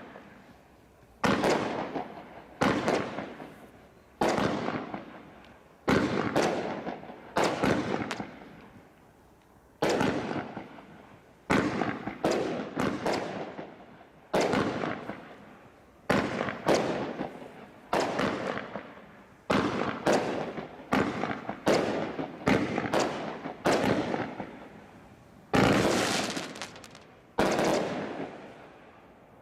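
Bright Star Desert Storm Crate firework barrage firing shot after shot: about twenty sharp bangs, roughly one every second or so, each fading away in a crackling tail.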